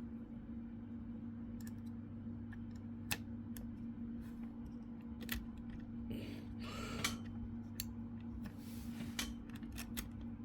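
Scattered small clicks and brief rustles of hands handling laptop parts, over a steady low electrical hum.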